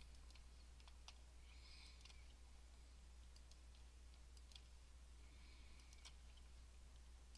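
Near silence: a few faint computer mouse clicks, spaced a second or so apart, over a low steady hum.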